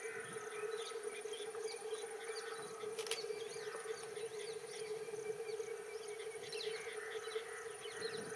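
Trackside ambience of insects and birds: a steady insect-like buzzing drone with many short bird chirps over it, and one sharp click about three seconds in.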